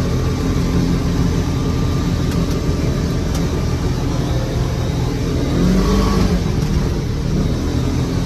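Four-wheel-drive vehicle engine running steadily as it drives across a snowy field, swelling briefly about six seconds in.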